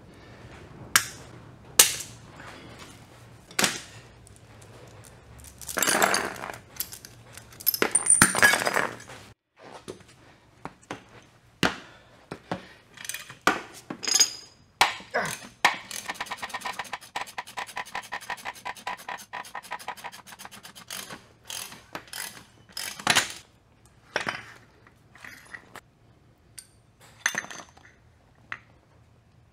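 Metal-on-metal clicks, clinks and short scrapes as the steel needle-bearing cage on a transmission mainshaft is cut off and its needle rollers drop loose onto a wooden bench. Partway through comes about five seconds of fast, even clicking, like a ratchet wrench winding in the screw of a jaw puller set behind the gear.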